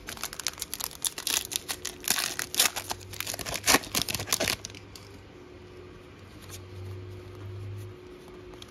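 The foil wrapper of a Donruss football trading-card pack being torn open and crinkled: a rapid run of crackles that stops about four and a half seconds in.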